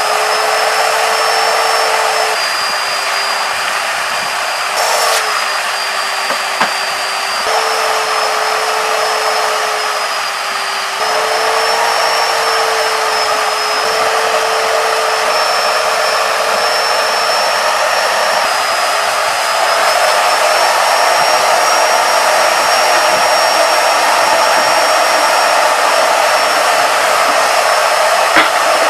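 Wet/dry shop vacuum motor running steadily with a whine whose pitch steps slightly up and down every few seconds. A brief click comes about five seconds in.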